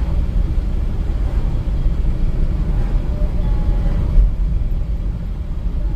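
Car cabin road noise while driving on a bumpy road: a steady low rumble of engine and tyres, with a single thump about four seconds in.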